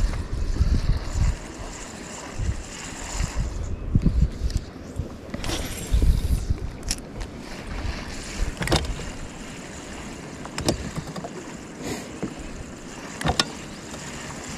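Wind buffeting the microphone in uneven gusts, with a few sharp clicks and knocks scattered through.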